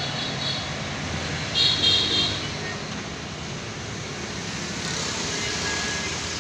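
Road traffic passing with a steady noise, and a brief, louder high-pitched sound about one and a half seconds in.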